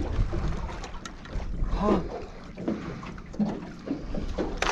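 Wind rumbling on the microphone and water moving around a small boat, with a few light knocks and a short murmur of voice about two seconds in.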